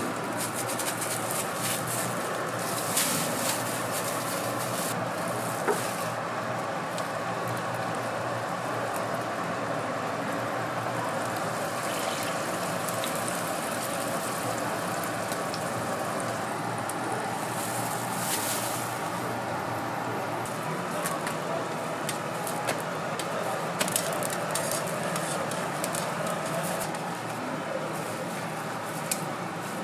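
Hotteok frying in oil on a street-stall griddle, over a steady wash of street noise. The sizzle swells three times, and light clicks and taps are scattered throughout.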